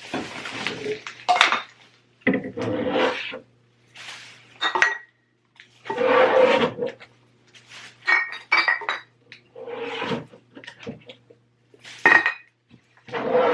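Sauce bottles and jars being handled and knocked together, a clatter of clinks every second or two, as they are cleared out of a refrigerator.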